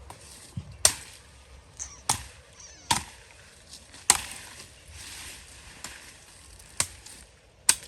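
Chopping blows from a cutting blade: six sharp strikes at irregular spacing, about one to three seconds apart.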